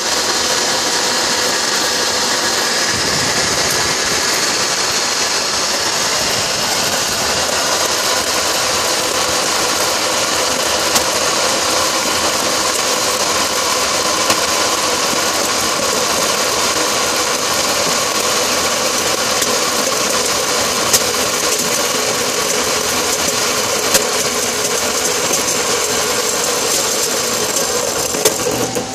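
Electric drill driving a homemade grain crusher as grain feeds through it: a steady motor whine over the rattle of grain being crushed, with a few sharp clicks.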